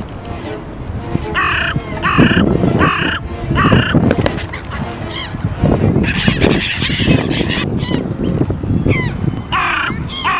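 Geese honking: four loud calls in quick succession about a second and a half in, more calls later on, over a low rumbling background.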